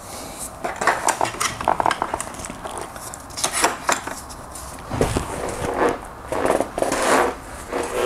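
Metal tools clinking and clattering irregularly against a motorcycle's rear hub: the chain-adjusting pin spanner and extension bar being fitted onto the adjuster's lugs and worked to turn it.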